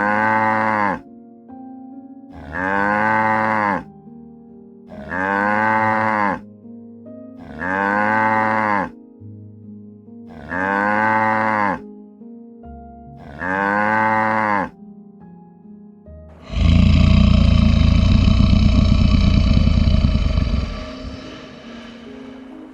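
A cow mooing six times at even intervals, each moo about a second long and rising then falling in pitch. Then comes one loud, harsh animal call lasting about four seconds. Soft background music plays underneath.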